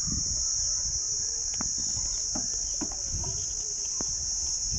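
Steady, unbroken high-pitched insect chorus of crickets trilling, with a low rumble underneath and a few faint clicks.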